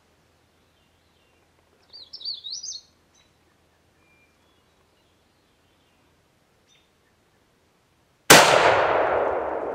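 A short warbling bird song phrase about two seconds in. Near the end, a single loud gunshot fired at a bear, echoing and fading slowly through the woods.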